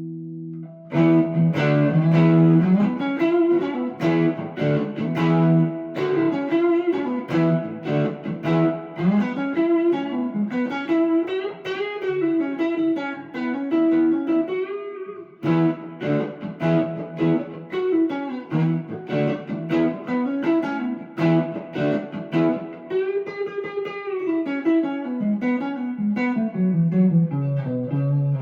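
Electric guitar played continuously: a held chord fading out, then picked single-note melodic runs and chords that climb and fall, with a short pause about halfway through.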